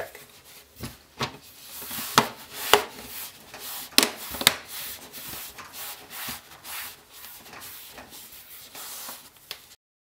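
MSI Modern 15 plastic bottom panel being pressed back onto the laptop by gloved hands: rubbing and scraping over the case, with several sharp clicks as the panel's clips snap into place, the loudest about two and four seconds in. The sound stops abruptly just before the end.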